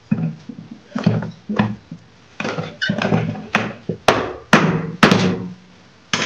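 A hammer striking the finned metal housing of an electric water pump motor: about ten sharp, irregularly spaced knocks, each with a short low ring. The blows are knocking the tight-fitting motor body loose from the pump casing.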